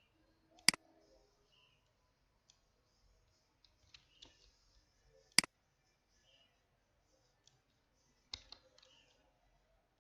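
Computer mouse clicking: two sharp single clicks about five seconds apart, a softer cluster of clicks near the end, and faint scattered ticks in between.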